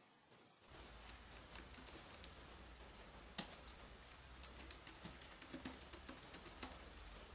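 Computer keyboard being typed on: a few scattered keystrokes, one heavier key press about three and a half seconds in, then a quick run of keystrokes.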